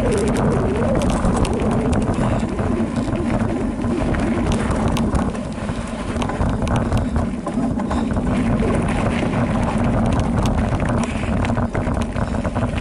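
Specialized Rockhopper Comp mountain bike rolling fast down a rocky dirt singletrack: wind rushes steadily over the bike-mounted microphone, and the bike rattles over stones in many short, sharp clicks and knocks.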